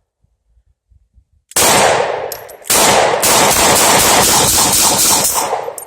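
Gunfire: a shot about a second and a half in, then a rapid string of shots running together for about three seconds before stopping.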